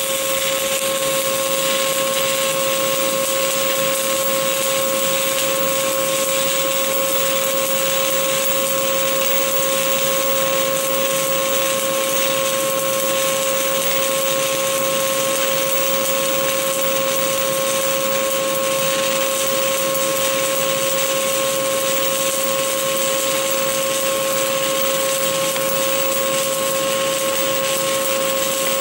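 Stick-welding arc of an ESAB OK 48.00 7018 2.5 mm electrode burning steadily on an open root pass: a continuous even hiss and crackle, with a steady hum underneath.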